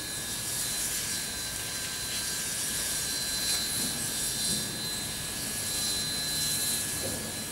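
Steady machinery running: a continuous hiss with two high, steady whining tones through it.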